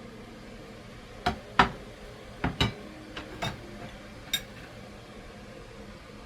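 Kitchenware clinking: seven sharp knocks of dishes and utensils over about three seconds, the second the loudest, over a steady background hum.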